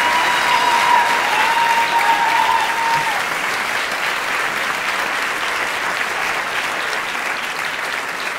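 Audience applauding, with one long held high note over the first three seconds; the clapping slowly dies down toward the end.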